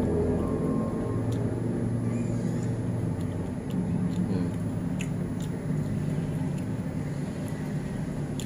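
Steady low rumble of road traffic, with cars passing close by and a few faint clicks on top.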